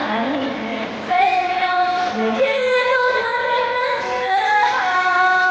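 A high female voice singing long held notes, with light backing music.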